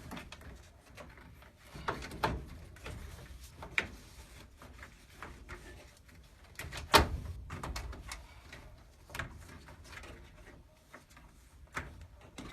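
Scattered clicks and knocks from handling a Honeywell furnace humidifier's plastic housing and water hose as the hose is worked onto its bottom fitting, with the sharpest knock about seven seconds in.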